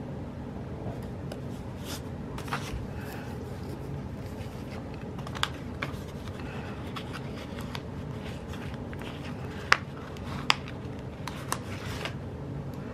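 Stickers being peeled from a sheet and laid onto a paper planner page with tweezers: light rustles and scratches with a few sharp clicks, two louder ones about ten seconds in, over a steady low hum.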